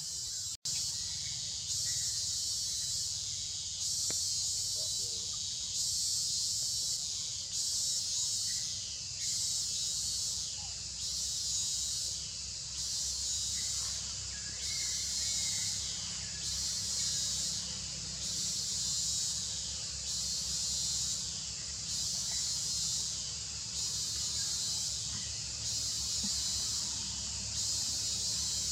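Chorus of cicadas in tropical forest, a loud high hiss that swells and fades in regular pulses about once a second, over a faint steady low rumble. The sound cuts out for a split second just after the start.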